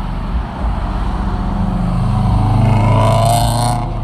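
Car engines and exhausts as cars drive past close by, the sound building to a loud burst of hard acceleration about three seconds in, which cuts off abruptly just before the end.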